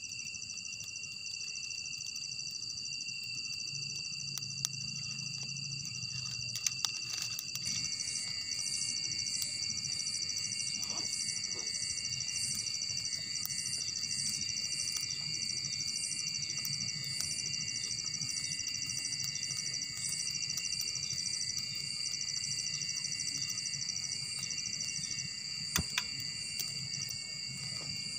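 Night insect chorus: crickets and other insects trilling steadily at several pitches, with another fast-pulsing trill joining about eight seconds in, and a few faint clicks.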